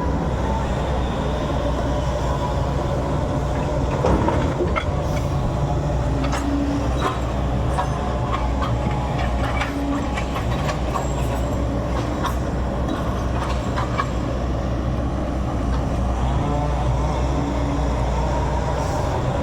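Backhoe's diesel engine running steadily, with a run of metallic clanks and knocks through the middle.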